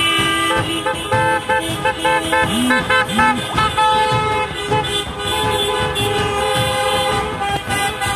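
Car horns honking from a slow convoy of passing cars: several horns at different pitches overlap, short repeated toots in the first few seconds, then longer held blasts, over engine and tyre noise.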